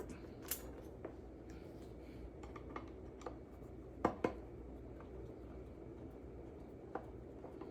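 Scattered small metallic clicks and taps from handling the amplifier's bottom-plate screws and metal casing, the sharpest a quick double click about four seconds in, over a faint low hum.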